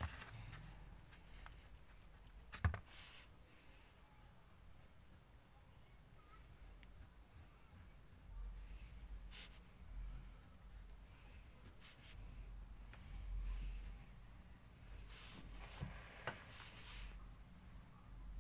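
Pencil scratching on paper in short sketching strokes, faint, with a single sharp tap a little under three seconds in.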